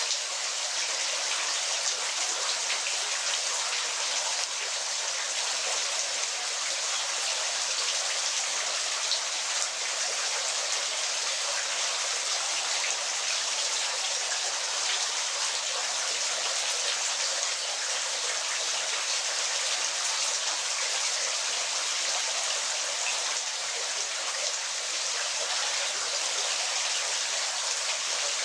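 Waterfall: a steady hiss of falling, splashing water, bright and even, with almost no low rumble.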